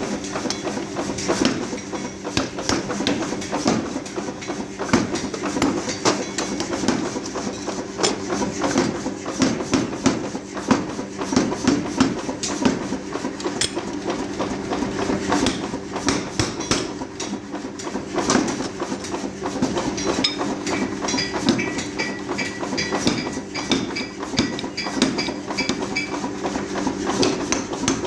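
Hammers repeatedly striking metal in a forging workshop over a steady machine hum. About two-thirds of the way through, a run of ringing metallic strikes repeats at roughly two a second.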